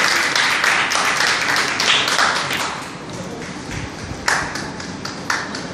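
Audience applauding at the end of a dance performance, dense at first, then thinning after about three seconds to scattered single claps, two of them louder near the end.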